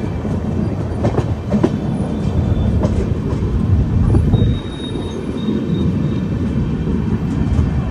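Express train's passenger coach running along the track, heard from its open doorway: a steady rumble of wheels on rail with scattered clacks.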